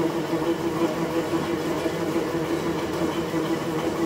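Polyester film slitting-rewinding machine running steadily, giving an even mechanical hum with one strong, slightly pulsing tone.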